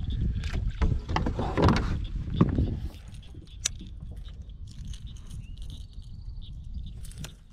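Fishing tackle being handled while a lure is changed on a baitcasting rod: small clicks and rattles over a low rumble of handling noise, which is louder for the first three seconds and then drops away.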